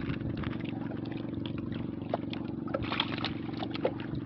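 A boat engine running with a steady low hum, with scattered light clicks over it.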